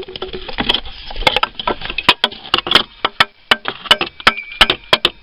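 Irregular clicks and knocks, about three or four a second, as the removed water pump assembly and its coolant tube are handled and worked apart by hand.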